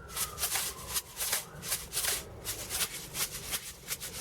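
Slug pellet shaker shaken like a maraca as percussion, the pellets rattling in a quick run of shakes.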